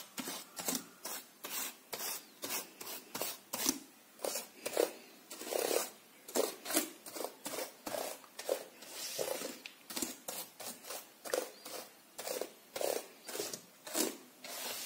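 Small cleaning brush scrubbed between laptop keyboard keys: short, dry brushing strokes, about two or three a second.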